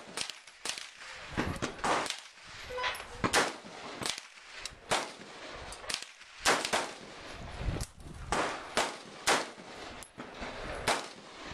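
Rifle gunshots at a shooting range, about twenty in all at irregular spacing, some loud and close and others fainter, as from more than one gun firing.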